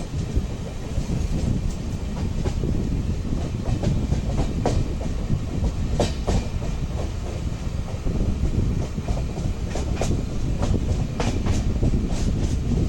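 Express train running at speed: a steady rumble with its wheels clicking irregularly over the rail joints.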